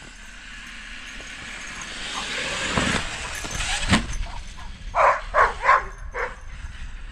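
Electric Traxxas X-Maxx RC monster truck driving in close with a rising motor and tyre hiss, then a sharp thump about four seconds in. A dog follows with four quick barks.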